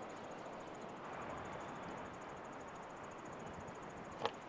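Faint steady outdoor background hiss, with one short light knock near the end.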